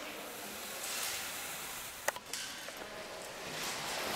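Footsteps scuffing and crunching on grit and debris over a concrete floor, with one sharp click about two seconds in.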